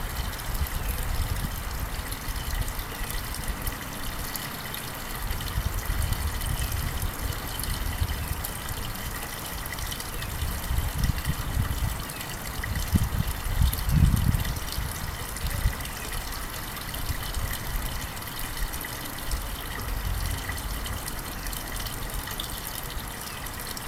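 Blizzard wind gusting against the microphone: uneven low rumbling buffets over a steady rushing hiss, with one stronger gust about halfway through.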